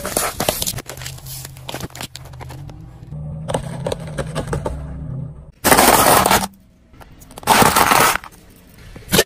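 A car tyre rolling over and crushing a tray of disposable plastic lighters, a carton of raw eggs and crunchy cheese doodles, heard as a string of loud cracks and crunches in several separate bursts.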